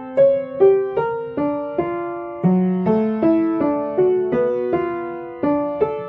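Background piano music: a gentle melody of single struck notes, two or three a second, each note fading as the next begins.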